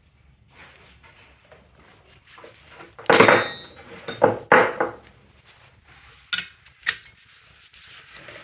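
Metal hand tools clanking and clinking: a cluster of loud metallic knocks with a ringing edge about three to five seconds in, then two sharp clicks.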